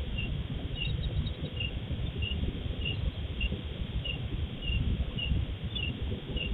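A cricket chirping in an even rhythm, a short chirp about every half to two-thirds of a second, over a steady low rumbling noise, recorded through a CCTV camera's microphone with its thin, high-cut sound.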